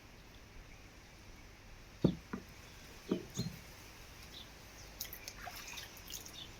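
Piemontite schist stones being handled: a few sharp knocks in two pairs, about a second apart.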